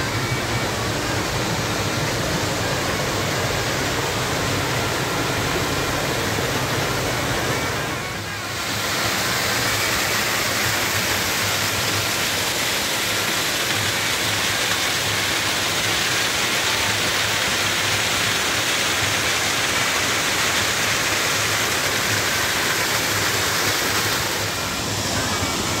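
Small forest waterfall pouring over rock into a stony pool: a steady rushing splash of falling water. It dips briefly about eight seconds in, then comes back fuller and louder.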